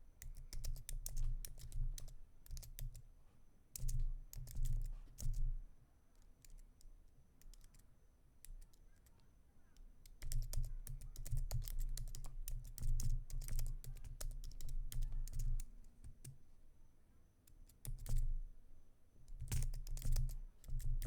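Typing on a computer keyboard in bursts of rapid key clicks, with low thumps under the keystrokes. The typing stops twice for a few seconds.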